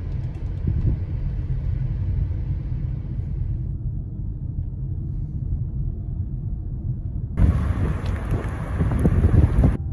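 Steady low rumble of a car driving, heard from inside the cabin. About seven seconds in it changes to a louder, hissier rush of road and wind noise from outside the moving car, which cuts off abruptly just before the end.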